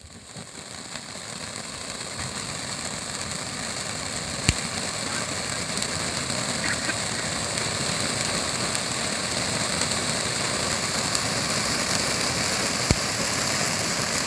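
A 'peacock tail' firework burning with a steady hiss that builds up over the first couple of seconds and then holds. Two sharp cracks stand out, one about four seconds in and one near the end.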